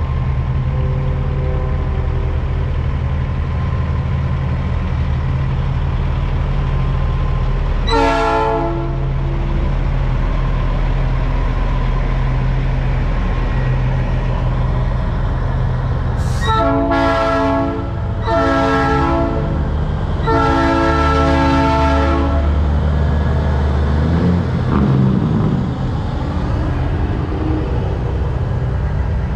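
Semi trucks' diesel engines running, with a truck air horn blown once about eight seconds in and then three times in a row, the last blast the longest.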